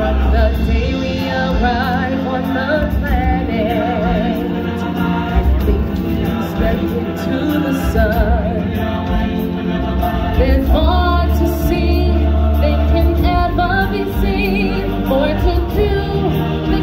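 Live stage-show music: several voices singing together with vibrato over band accompaniment and a steady bass.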